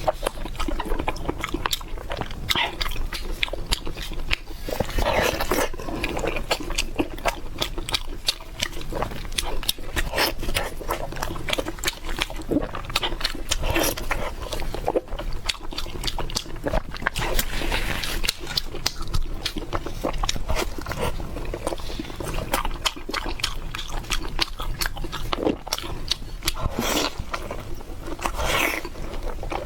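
Close-miked chewing and biting of Chinese red-braised pork belly. Wet mouth smacks and clicks follow one another unevenly throughout.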